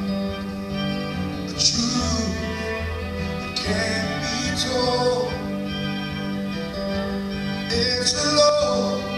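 Live slow song played on an acoustic guitar with a string ensemble of violins and cellos, sustained chords and swelling string lines.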